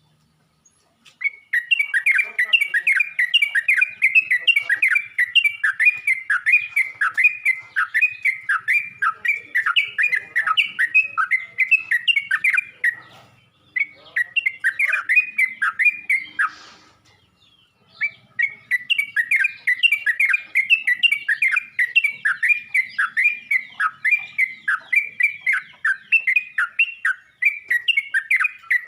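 Yellow-vented bulbul (trucuk) calling: a long run of quick, bubbling notes, about two or three a second, in three bouts with two short breaks near the middle. This is the call the bird uses to draw in other trucuk bulbuls.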